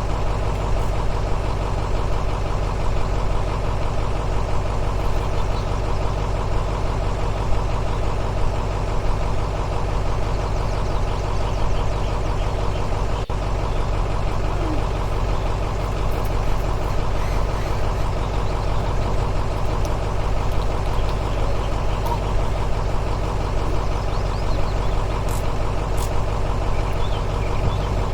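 An engine idling steadily, with no revving or change in pitch throughout.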